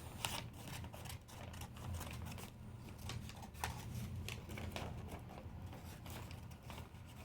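Scattered light clicks and short rustles of packaging being handled by hand, over a low steady hum.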